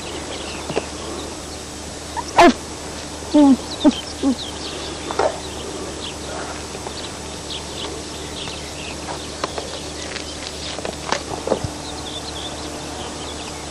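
Birds chirping in short calls over a steady faint hum, with a few louder short animal calls between about two and four and a half seconds in.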